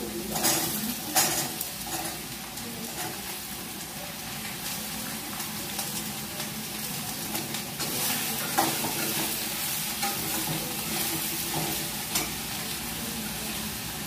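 Potato bhujiya sizzling as it fries in a steel wok, stirred with a metal spoon that scrapes and knocks on the pan now and then. The sharpest knock comes about a second in.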